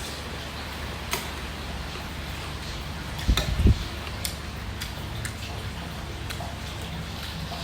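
Eating utensils clicking sparsely against a dish of rice and stir-fried squid, over a steady background hiss, with a few low thumps about three and a half seconds in.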